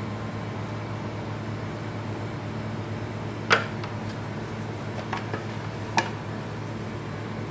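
Steady hum of a kitchen fan or refrigeration unit, with a few light taps and clicks as a thin baked disc and a silicone mould are handled on a metal baking tray. The sharpest tap comes about three and a half seconds in.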